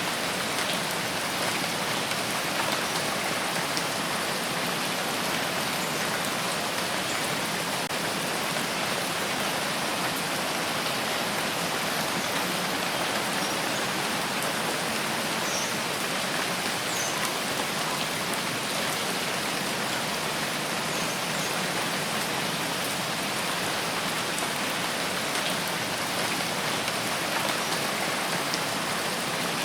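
Steady rainfall, an even hiss of rain with scattered faint drop ticks.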